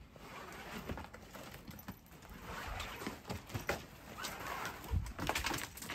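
Irregular scuffs, taps and knocks of boots and gear against rock as a person rappels down a rock face, busier in the second half, with a louder knock about five seconds in.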